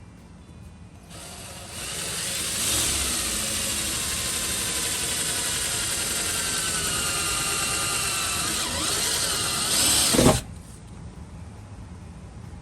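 Electric drill running for about nine seconds, drilling a new mounting hole in a glove box door; its whine wavers in pitch under load, swells near the end and stops suddenly.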